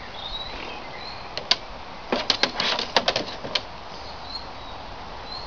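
A Boxer puppy's paws and claws tapping and knocking on a hollow plastic children's slide: a quick, uneven run of about a dozen sharp clicks between one and four seconds in. Birds chirp faintly in the background.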